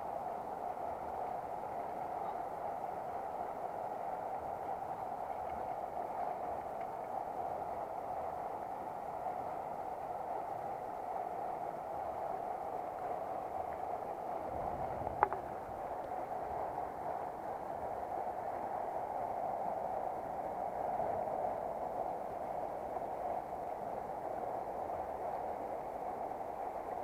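River water running steadily over a stony bed, an even rushing sound. A single sharp click about halfway through.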